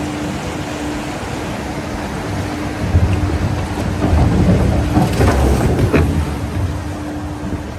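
Water rushing down a log flume slide, over a steady low hum. About three seconds in it grows louder and splashier as a log boat comes down the drop and hits the water, easing off near the end.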